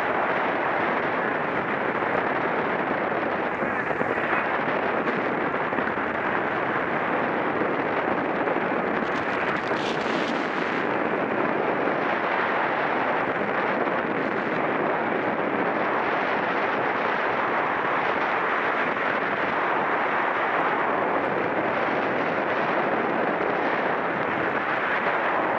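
Wind rushing steadily over the microphone of a camera carried on a racing bicycle.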